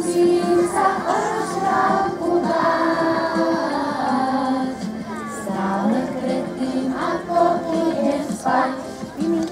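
A group of young children singing a song together in unison, with some notes held long.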